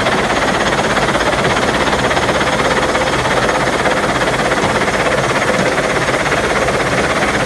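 Water spray bars jetting onto wet sand and gravel on a vibrating washing screen: a loud, steady mix of hissing spray and a fast rattle of gravel and screen deck.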